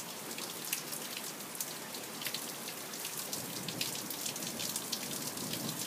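Heavy rain pouring down: a steady hiss with many individual drops ticking sharply close by.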